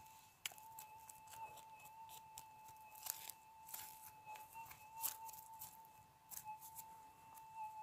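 Hands scraping and picking through gravel and small stones, a run of faint crunches and clicks. Sharper clicks come about half a second in, around three seconds and around five seconds. A steady faint high electronic tone sounds throughout.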